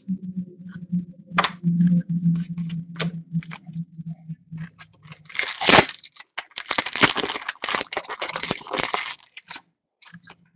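A hockey card pack being torn open and handled: scattered clicks and taps, then about four seconds of crinkling and tearing of the wrapper from a little before halfway, loudest near the start of that stretch. A low steady hum runs under the first half.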